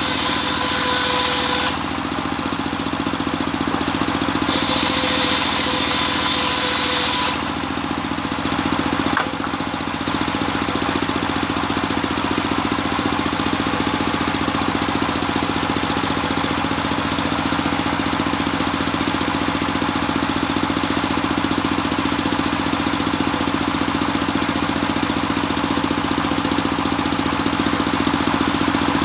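Engine-driven circular saw bench running steadily, its blade cutting through mindi timber twice in the first several seconds with a high whine, each cut about two to three seconds long. After that the engine and blade run on without cutting.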